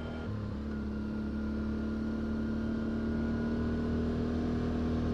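Quad (ATV) engine running at a steady pace, a low, even hum that slowly grows louder.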